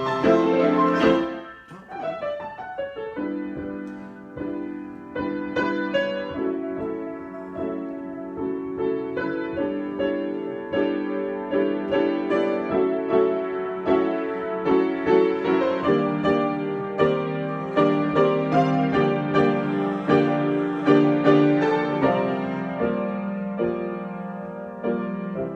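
Solo piano improvisation: chords and melody notes struck over a sustained low register, dipping quiet about two seconds in, then building gradually and easing off near the end.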